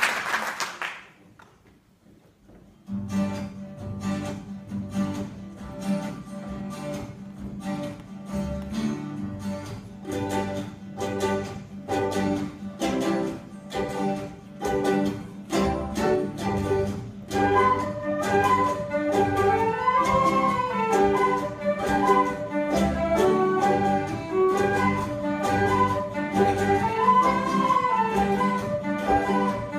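An acoustic ensemble of guitars, fiddles and other string instruments plays a strummed tune with a steady beat, starting about three seconds in after a brief sound and a pause. About halfway through, a melody line rising and falling joins over the strumming.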